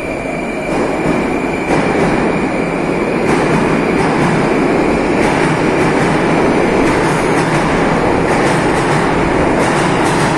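Moscow metro train running in the station: a loud, steady rumble of wheels and traction motors that builds over the first two seconds and then holds.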